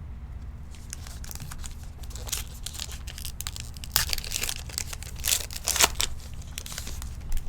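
Plastic wrapper of a baseball card pack being torn open and crinkled, in a run of rustles and sharp tears, the loudest about four seconds in and again near six seconds.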